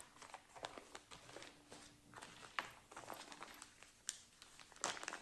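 Faint rustling and crinkling of cross-stitch kit packaging being handled, with soft clicks and a few sharper crackles.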